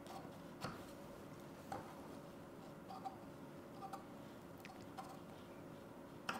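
Scissors snipping loose threads off a freshly stitched blouse seam: faint, short snips about once a second.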